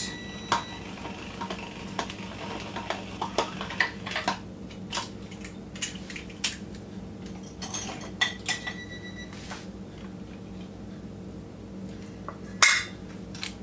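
Hand-held manual can opener cutting around the rim of a metal vegetable can: scattered small metallic clicks and scrapes, with a louder clank near the end as the lid is lifted off.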